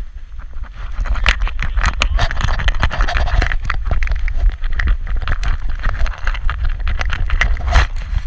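The view from a camera strapped to a small dog's back as it trots: the metal leash clip and harness rings rattle and click irregularly with its strides, over a steady low rumble of wind and handling noise on the microphone.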